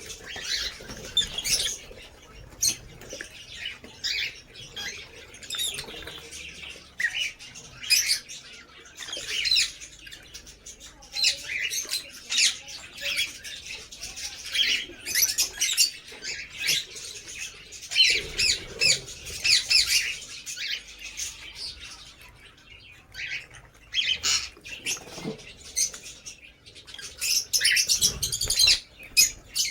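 Lovebirds chirping and squawking continuously, many short high calls overlapping, with a few fluttering wingbeats.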